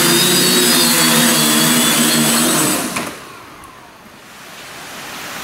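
Aquacopter waterproof quadcopter's motors and propellers whining steadily in a low hover, then cutting out about three seconds in as it lands, the pitch falling as the propellers spin down. Rain hisses after that.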